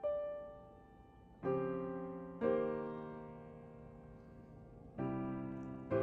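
Slow background piano music: a single note, then chords struck at uneven intervals, each ringing out and fading.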